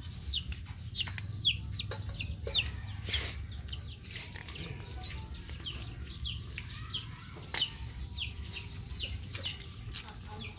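Birds chirping over and over in short, high calls that fall in pitch, about two a second, with a few sharp clicks and a steady low rumble underneath.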